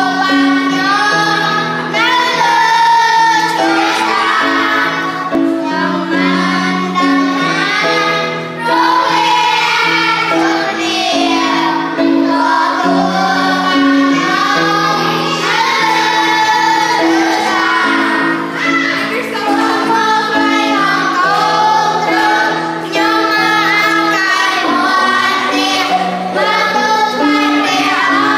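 Children singing a song together, accompanied by a Casio CTK electronic keyboard played with both hands, its held notes changing every second or two under the voices.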